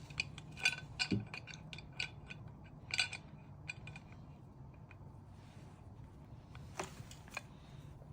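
A wrench clinking and scraping against the metal cartridge cover of a bathroom faucet as the cover is tightened: a quick run of sharp metallic clicks in the first few seconds, then a few scattered clicks near the end.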